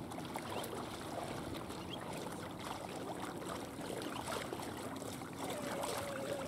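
Legs wading through shallow water, a steady sloshing and splashing with each stride.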